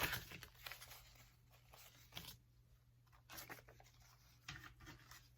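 Faint rustling and sliding of paper banknotes being handled and tucked into a cash envelope, in a few short scrapes.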